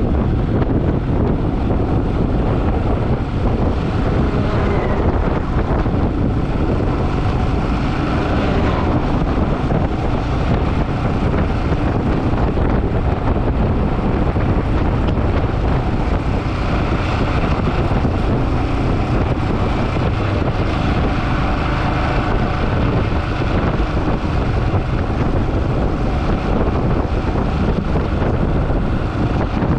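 Steady wind rushing over the microphone of a moving motorcycle, with vehicle and road noise underneath.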